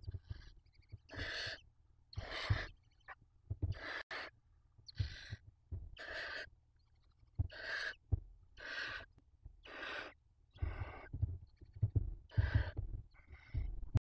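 Barn owl chicks' begging calls: a series of hissing calls, about one a second, each under half a second long. Low thumps come from the owls shifting about in the wooden nest box.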